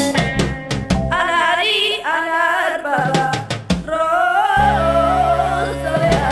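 Music: a song with percussive beats, and a singing voice with wavering vibrato coming in about a second in.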